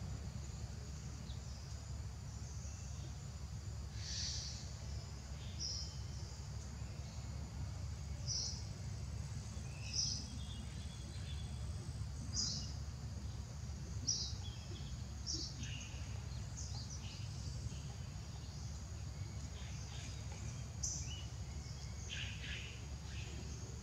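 Short, high-pitched animal chirps, a dozen or so scattered irregularly, over a steady low rumble.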